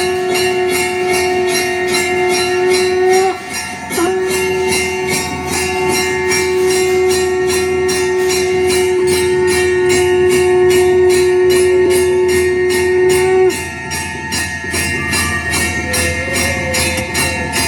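Music with a steady jingling beat and a long held note that stops about thirteen seconds in, played through a Hyundai Grand i10 Nios car's audio system to show off its bass.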